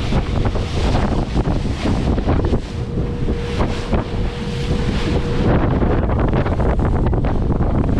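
Wind buffeting the microphone of a camera on the outside of a Stabicraft 2050 Supercab aluminium boat under way in choppy water, over the steady rush of wake and spray along the hull. A thin steady tone sounds for about three seconds in the middle.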